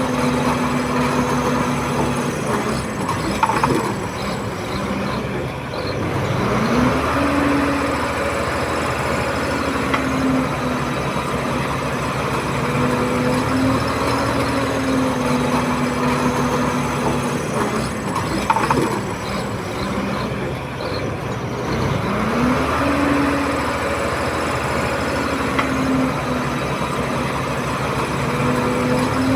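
Komatsu D31P bulldozer's diesel engine running steadily. Its pitch drops and climbs back twice, about fifteen seconds apart, with a short knock at each dip.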